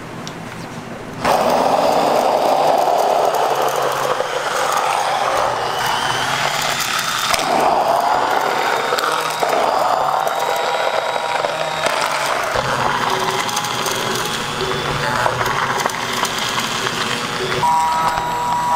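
Stick blender switching on about a second in and running in a bowl of liquid mixture, its churning sound shifting as it moves through the mix.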